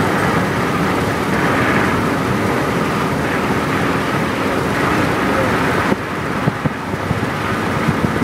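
Steady rushing road and wind noise of a car driving at speed, with the wind buffeting the microphone. The noise drops a little about six seconds in.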